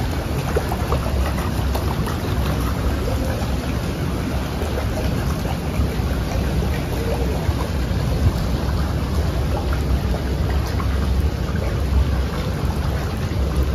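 Steady rain falling on a swimming pool and the wet paving around it, a dense patter of small drops over a steady low rumble.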